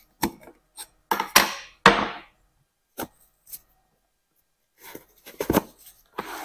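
Clunks, knocks and a short scrape of a body filler tin and hand tools being handled as filler is set out for mixing: a string of separate short sounds with quiet gaps between, the loudest about one and two seconds in.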